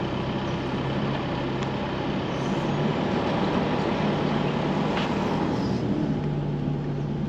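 Isuzu four-wheel drive towing a caravan at low speed on a dirt track: a steady engine hum under a constant wash of tyre and road noise.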